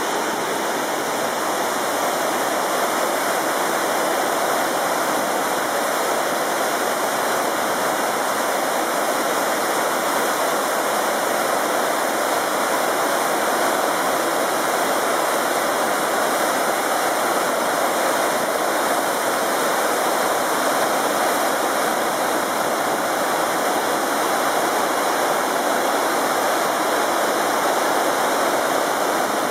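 Chenuis Falls, a whitewater cascade over rocks into a pool: a steady, even rush of falling water.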